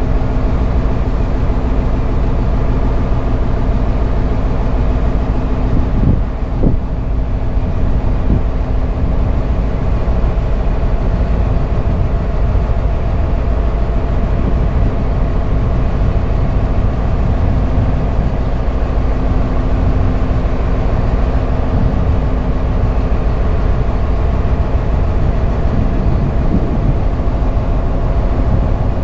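A dhoni's engine running steadily while the boat is under way, a constant hum of several fixed tones over a low rumble.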